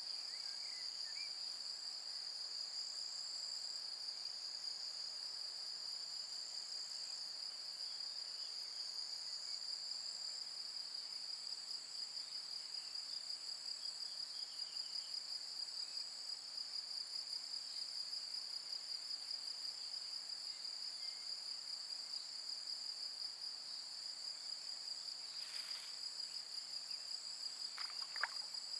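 Insects trilling steadily in a high, continuous chorus, with a brief tick near the end.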